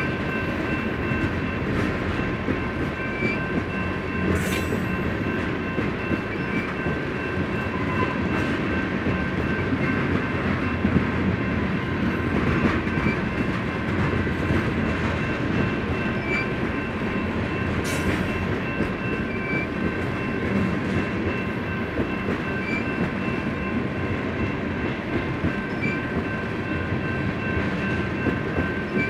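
BNSF freight train's cars rolling steadily past: a continuous rumble of steel wheels on rail with some clickety-clack. A few steady high-pitched tones ring through it.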